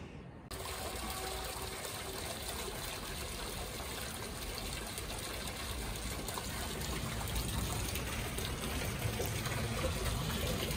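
Water running into a foot bath pool, a steady trickle that grows slowly louder.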